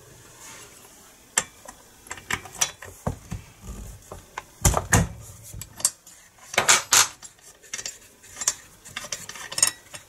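Irregular metallic clinks, clicks and knocks of hand tools and parts being handled on a Stihl 018 chainsaw while getting at its spark plug, with the loudest knocks about five and seven seconds in.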